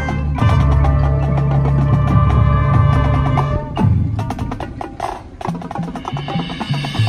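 High school marching band playing: held wind and brass chords over drumline and keyboard percussion. The full chord breaks off a little under four seconds in, leaving a thinner, quieter passage, and a low brass chord comes back in near the end.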